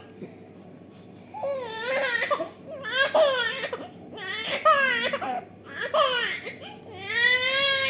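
A five-month-old baby fussing and crying in a string of about five short, high-pitched wails, the last one held longer.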